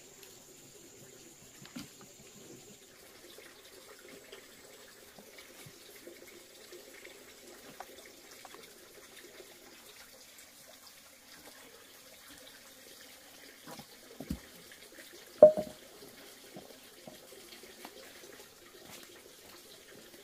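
Faint steady background noise with scattered light knocks as bunches of green bananas are handled and set on wooden boards. A few heavier knocks come about fourteen seconds in, then one sharp, loud knock just after.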